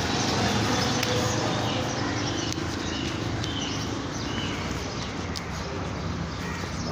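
Motorcycle engine running steadily, with a few short bird calls two to four seconds in.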